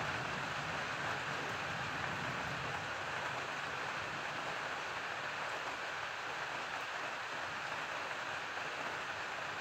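Steady heavy rain pouring down in a thunderstorm, with a low rumble of thunder dying away in the first couple of seconds.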